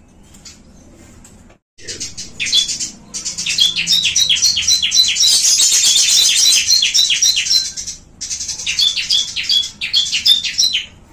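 Small cage birds chirping loudly in rapid runs of short, high notes. The chirping starts about two seconds in and breaks off briefly near eight seconds.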